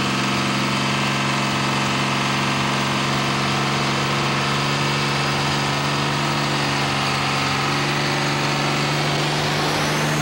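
Turbocharged diesel engine of a John Deere 4455 super stock pulling tractor held at steady high revs, building boost before the clutch is let out. The pitch and loudness stay constant throughout.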